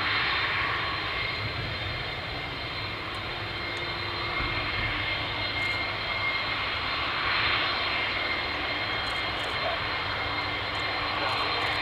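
Jet aircraft engines running at low power while taxiing: a steady rushing noise with a steady high-pitched whine.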